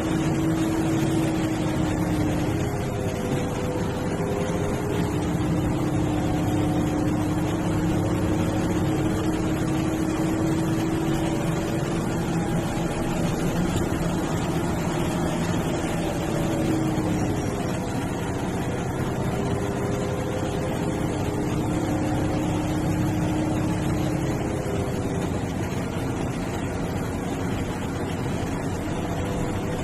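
Diesel engine of an MSRTC sleeper/seater bus running on the road under steady road noise. The engine note dips in pitch and climbs back a few times, about 3, 17 and 25 seconds in, as the engine speed changes.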